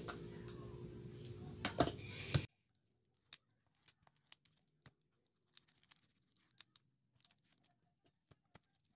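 Faint, scattered clicks and taps of hands pressing and smoothing a glue-coated leather collar strap. A low room hum cuts off suddenly about two and a half seconds in, leaving only the sparse handling clicks.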